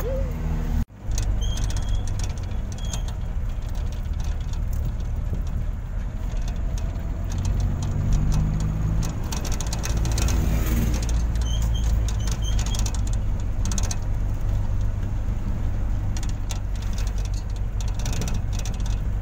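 Engine and road noise heard from inside the cabin of a small vehicle being driven, a steady low rumble with frequent light knocks and rattles. The sound drops out briefly about a second in.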